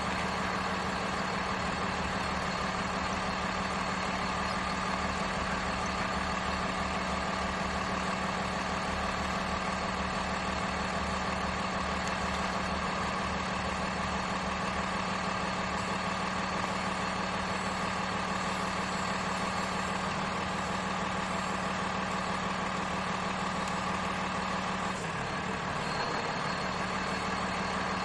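Radio-controlled construction models running steadily: an engine-like hum with a pulsing low note and a thin high whine over it, shifting briefly about 25 seconds in.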